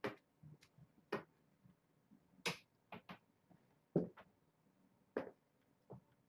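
Kittens wrestling on a towel among toys, making soft, irregular scuffs, taps and rustles. There are about ten short ones in six seconds, with a slightly longer rustle in the middle.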